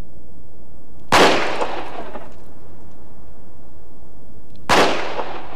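Two shots from a revolver, about three and a half seconds apart, each with a short echoing tail.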